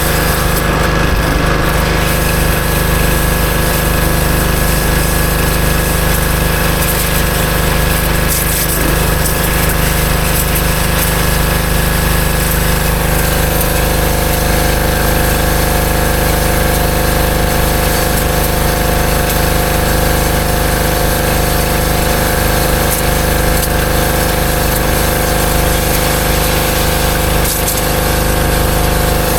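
Westinghouse WPX3200 gas pressure washer running steadily under load, its engine and pump driving water through a 25-degree nozzle into a bucket, with the hiss of the spray over the engine's drone.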